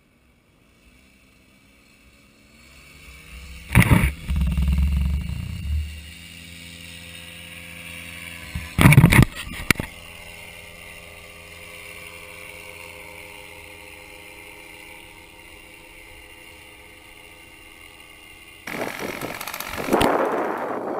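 Paramotor engine throttling up, its pitch rising over a second or so, then running at a steady drone as it flies off. Wind gusts hit the microphone twice, about 4 and 9 seconds in. Near the end there is a stretch of loud wind noise.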